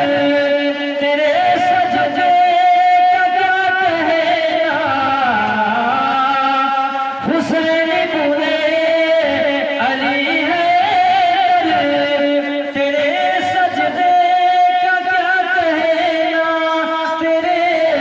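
A man singing a naat, drawing out long held notes with wavering ornaments and slow slides up and down, without clear words.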